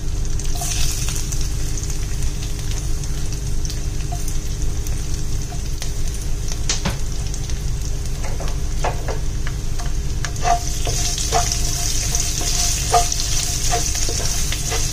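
Chopped garlic and ginger sizzling in hot coconut oil with whole spices in a nonstick pan. From about halfway, a spatula scrapes and taps the pan as they are stirred, and the sizzle grows louder near the end.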